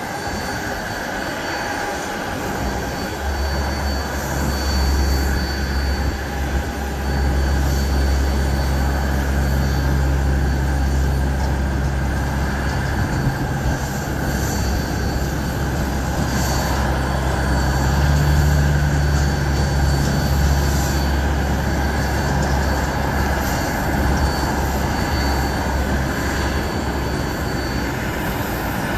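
Airport ramp noise: a thin, steady high whine over a low engine drone that sets in about three seconds in and holds.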